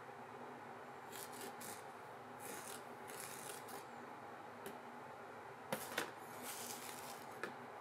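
Fine sodium polyacrylate powder sliding off a plastic spoon onto a plastic sheet: soft, short rustling hisses in a few bursts as it pours, with a few sharp clicks in the second half, the loudest a pair about a quarter second apart.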